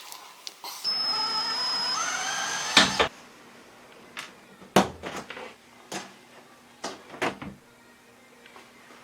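A small electric motor runs for about two seconds with a whine that steps up in pitch, then stops. A series of sharp clicks and knocks follows.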